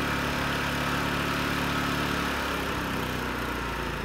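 WEN 56203i 2000-watt inverter generator's four-stroke engine running steadily. About halfway through, it slows as eco mode throttles it back, and it settles to a lower, slightly quieter idle.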